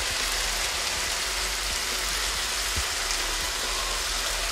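Ground meat sizzling steadily in a frying pan on the stove.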